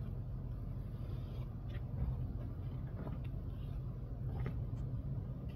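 Hard plastic float scraping and smoothing wet acrylic stucco finish on a foam board's edges, a few faint short scrapes over a steady low rumble.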